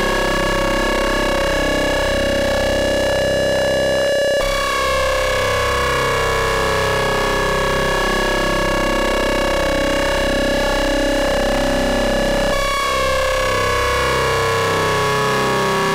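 Modular synthesizer tone from Rossum Trident oscillators, ring-modulated and wave-spliced: a dense, buzzy drone with many overtones. Its timbre changes abruptly about four seconds in and again near the end, and between those changes some overtones slowly glide downward.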